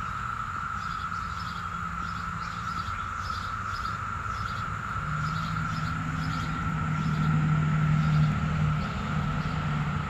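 Chorus of many periodical cicadas, a steady high drone that holds one pitch without a break. A low hum swells about halfway through and fades near the end.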